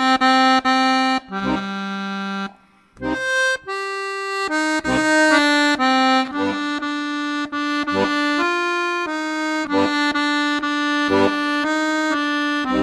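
Accordion playing a slow melody of held notes, with bass notes struck beneath it; the playing breaks off briefly about two and a half seconds in.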